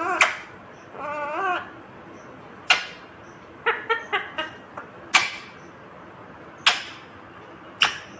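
Indian ringneck parakeet calling: a wavering, warbled call about a second in, then a string of short, sharp, high shrieks every second or two, with a quick run of chirps around the middle.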